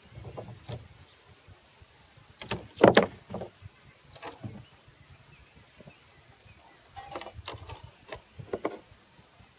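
Scattered clinks and rattles of baling wire and a rebar roasting rack as the wire is twisted to fasten the rack, with one louder knock about three seconds in.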